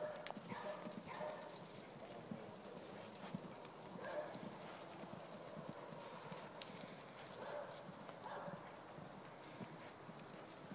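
Hoofbeats of a horse and her foal trotting and cantering loose on soft dirt: dull, irregular thuds.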